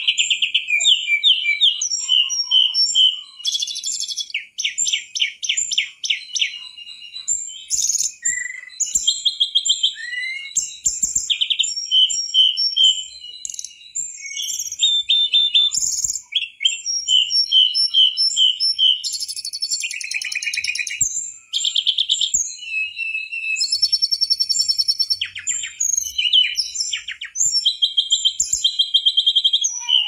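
Mangrove blue flycatcher (tledekan bakau) in full song: a long, varied run of high clear whistles, quick repeated notes and fast trills, phrase after phrase with only brief pauses.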